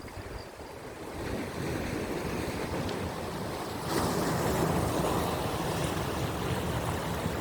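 Rough sea waves breaking and surging against coastal rocks, with strong wind buffeting the microphone; a bigger wave comes in about four seconds in and the wash stays louder after it.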